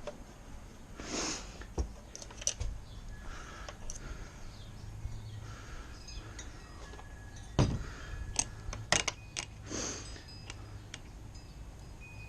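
Metal tools and small parts clinking and clattering as they are handled and set in a tray, with a few soft swishes between. The sharpest clinks come in a quick cluster about two-thirds through.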